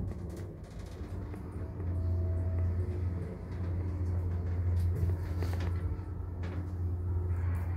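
Thyssenkrupp passenger elevator car travelling down between floors: a steady low hum of the ride, with a few faint rattles.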